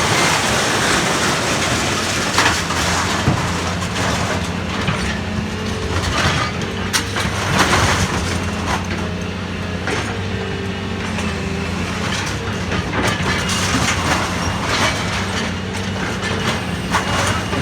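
A grapple claw crushing a refrigerator: sheet metal crunching, with many sharp cracks and pops, over the steady drone of the machine's engine.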